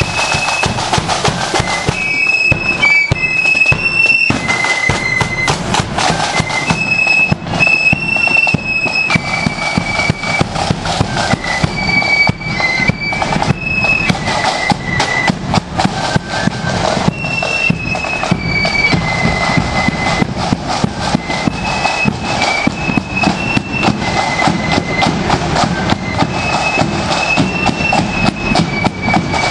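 Marching flute band playing: flutes carry a high, shrill melody over rapid snare drumming and bass drum beats.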